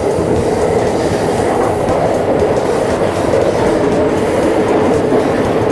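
Chuo Line electric commuter train running along the track, heard from inside the front car: a steady rumble of wheels on rail.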